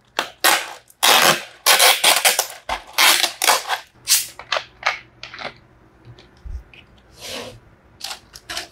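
The plastic lid is peeled off a cup of ice, giving a dense run of loud crinkling, scraping plastic and ice rattling over the first four seconds, then a few lighter knocks. About seven seconds in, a plastic Coca-Cola bottle's cap is twisted open with a short hiss of escaping carbonation, followed by a couple of small clicks.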